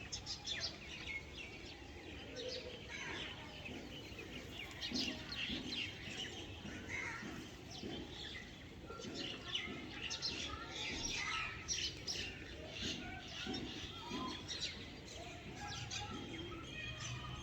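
A chorus of birds chirping and calling, with many short, high chirps and trills overlapping throughout.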